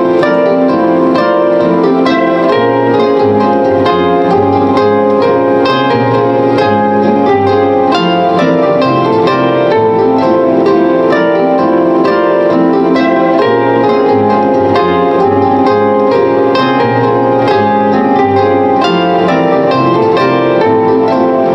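Live solo music on a plucked string instrument: a continuous stream of quick plucked notes ringing into one another over a shifting low bass line.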